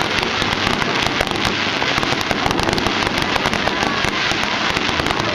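Fireworks display: a dense, unbroken crackle of many small bursts going off together.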